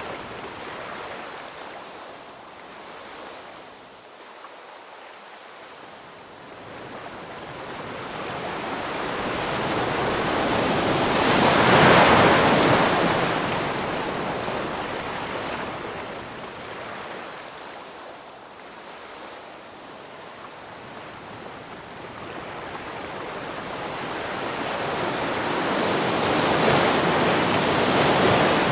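Ocean waves washing in and out: two slow swells of surf, the first peaking about twelve seconds in and the second near the end, with quieter hissing lulls between.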